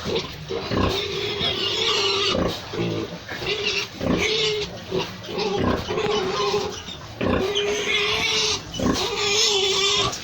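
Pigs calling, several voices overlapping, with a drawn-out tone that breaks off and starts again every second or two.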